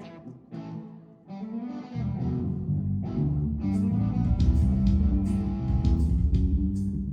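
A live rock band playing, led by electric guitar. Sparse guitar notes come first, then the band comes in fuller and louder with bass about two seconds in.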